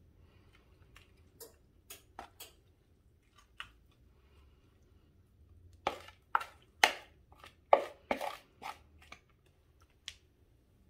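Spatula scraping and knocking a hash brown casserole mixture out of a large mixing bowl into a baking dish: scattered light taps at first, then a run of louder knocks and scrapes about six seconds in.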